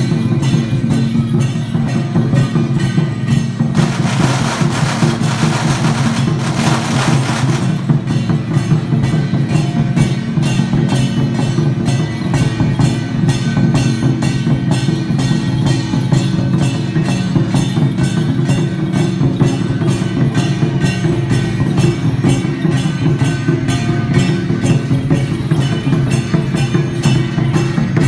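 Taiwanese temple procession music, with drums and wood clappers beating a fast, even rhythm over a steady low drone. A loud hissing wash, like crashing cymbals, comes in about four seconds in and stops some three seconds later.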